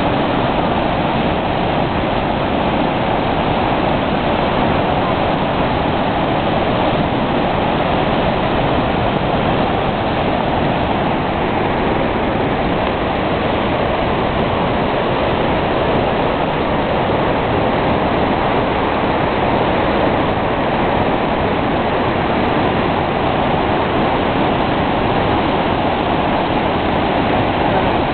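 Water released through a dam's opened floodgates, pouring down a waterfall: a loud, steady rush of falling water.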